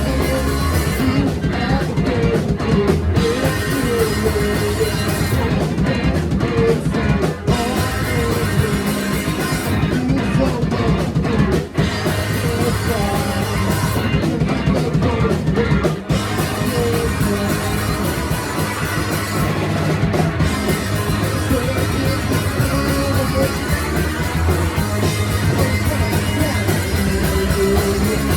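Live rock band of drums, electric guitar and bass playing loudly. Over the first sixteen seconds or so the playing goes stop-start, with the top end dropping out briefly about every four seconds, then it runs on steadily.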